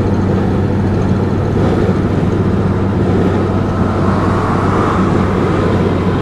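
Inside the cabin of a 1990 Mercedes-Benz 300D 2.5 cruising at highway speed: the five-cylinder diesel engine's steady drone blended with tyre and road noise.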